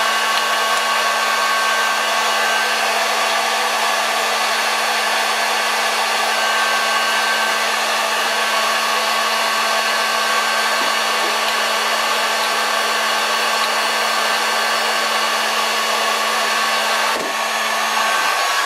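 Hot air gun blowing steadily, a loud even rush of air over a steady motor hum and whine. The hum drops out near the end as the gun is switched off.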